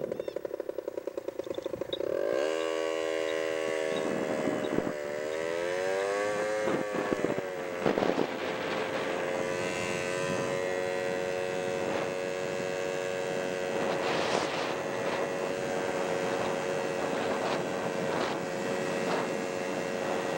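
Motorcycle engine heard from the rider's helmet: it chugs at low revs, then pulls away with the pitch rising and dipping through gear changes, and settles into a steady cruise. Wind noise runs under it, with a few brief rushes of noise later on.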